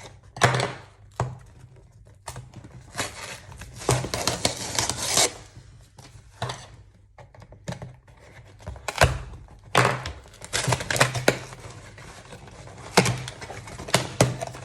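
Toy packaging being torn open and handled: irregular ripping and crinkling with knocks and clicks in between.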